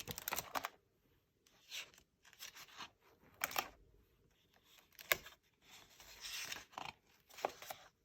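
Book pages being handled and turned: a series of short paper rustles and scrapes.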